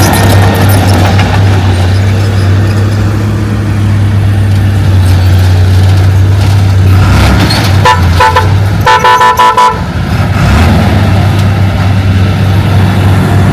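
A heavy diesel engine runs steadily. About eight seconds in, a vehicle horn gives three quick short toots, then one longer blast of nearly a second.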